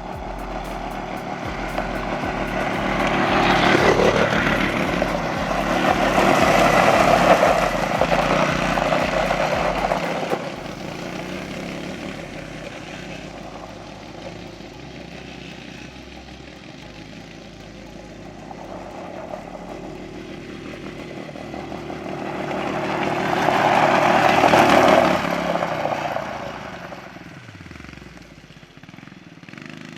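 CFMOTO CFORCE 110 youth ATVs' small single-cylinder four-stroke engines running at high revs in restricted low-speed mode, often on the rev limiter. The sound grows loud as they pass close about four to ten seconds in and again around twenty-four seconds, fading between the passes.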